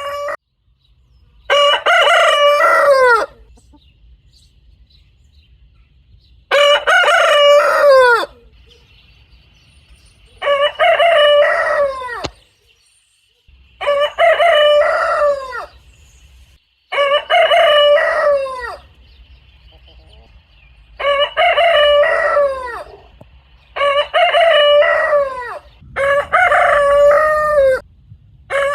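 A rooster crowing over and over: about eight separate cock-a-doodle-doo crows, each under two seconds long and falling in pitch at the end, a few seconds apart.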